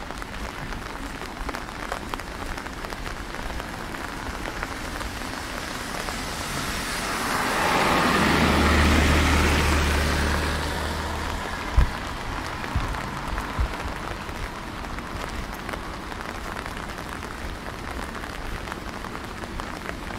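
Steady rain falling on wet pavement. Around the middle, a vehicle's tyre hiss and low engine hum swell and fade as it passes on the wet road, followed by a few sharp knocks.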